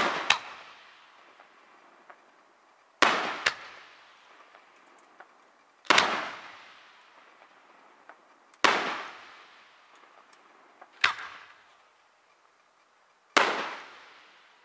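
Aerial firework shells going off: six sharp bangs, roughly every two and a half to three seconds, each trailing off in a long echo.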